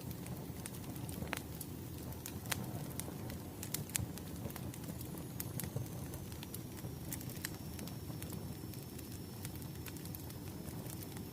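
Wood fire crackling, with scattered sharp pops over a low steady rumble.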